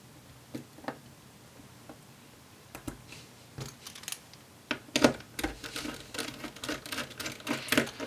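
Light clicks and taps of small plastic and metal parts handled on a motherboard while a CPU is seated in its AM4 socket and a screwdriver takes out the stock socket retention bracket. A few scattered clicks at first, then a busy run of clicks and rattles through the second half.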